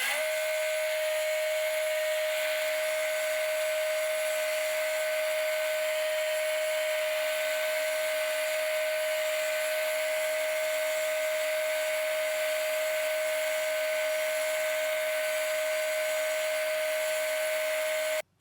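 Electric power tool running at a steady speed, a constant whine over a steady hiss, stopping abruptly near the end.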